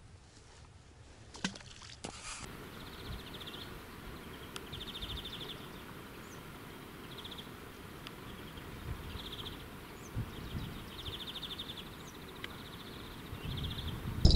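Riverside spring ambience: a small songbird repeating a short, rapid, buzzy high-pitched trill about every second or two over a steady low background. Two faint clicks near the start.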